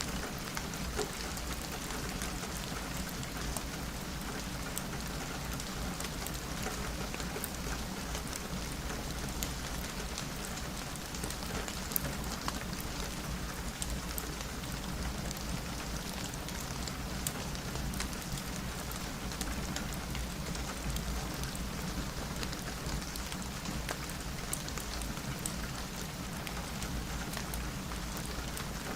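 Steady rain falling on a window, a continuous even hiss with many scattered sharp ticks of individual drops.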